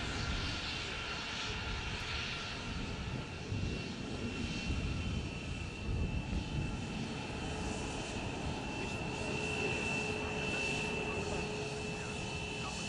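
Twin turbofan engines of an Embraer KC-390 military transport running at low power while it taxis. A steady high-pitched whine sits over a low rumble, and a lower hum joins about two thirds of the way through.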